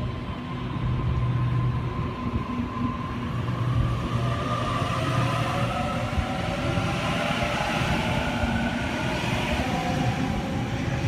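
Double-deck electric train pulling away from a station platform and gathering speed: its traction motors give a whine that climbs steadily in pitch over the wheels' rumble and the rail noise.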